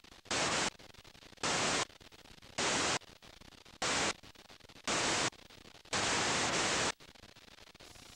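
Bursts of loud white-noise static from a VHS tape playing back a blank or damaged stretch, cutting in and out six times at uneven intervals. The last burst is the longest, about a second, and ends near the close.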